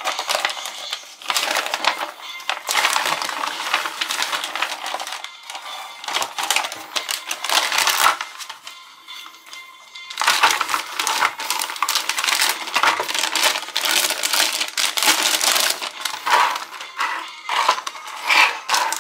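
Crinkling and rustling of packaging being handled in irregular bursts: glossy magazine pages turned, then a large foil pouch and a printed plastic bag crumpled and squeezed.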